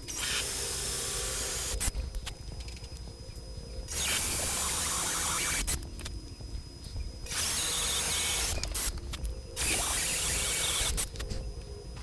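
Makita cordless drill with a 1/16 inch bit running in four short bursts of about a second and a half each, with pauses between, as it bores pilot holes through stacked MDF and birch plywood.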